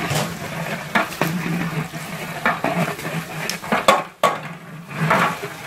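A long metal stirring rod scraping and knocking against the inside of a large metal cooking pot as a big batch of food is stirred. There are several sharp metal clanks and a steady hiss underneath.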